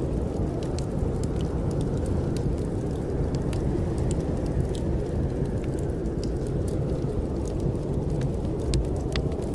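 Snowstorm wind making a steady low roar, with the sharp, irregular crackles and pops of a wood fire burning in a fireplace scattered over it.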